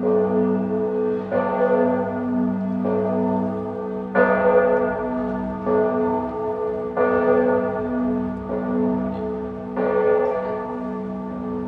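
Church bells ringing, a fresh strike about every second and a half, each one ringing on into the next.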